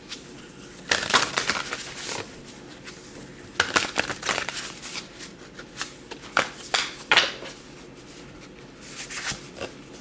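Tarot cards being shuffled and handled: short clusters of quick papery flicks and rustles, about a second in, around four seconds, around seven seconds and near the end.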